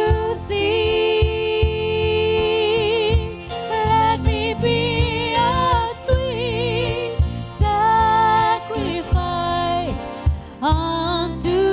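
Slow worship song: a voice holding long notes with vibrato over a band with a steady low beat.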